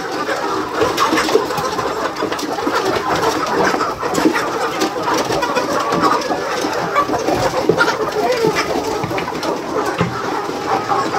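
A large flock of chickens calling all at once, a dense, steady chatter of many overlapping calls.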